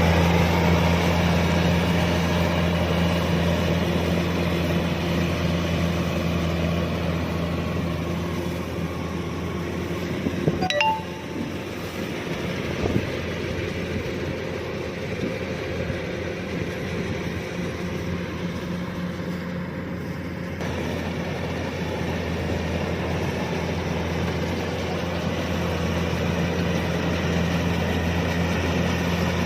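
Kubota DC-105X combine harvester running steadily with a low, even engine drone. About a third of the way in there is one sharp metallic clink that rings briefly.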